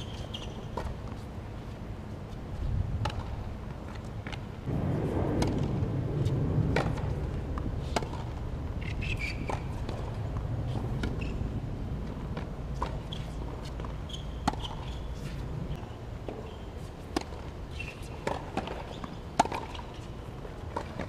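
Tennis balls bouncing and being struck on an outdoor hard court: scattered sharp knocks over a low rumble that swells for a few seconds about a quarter of the way in, with the sharpest knock near the end.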